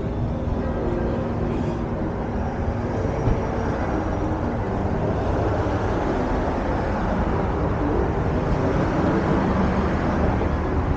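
Steady street traffic noise from passing vehicles, swelling slightly louder in the second half.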